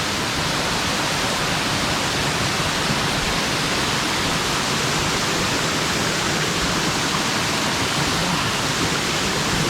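Waterfall pouring, a loud steady rush of water.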